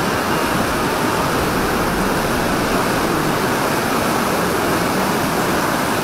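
Fast-flowing mountain stream rushing in white water: a loud, steady, even wash of water noise.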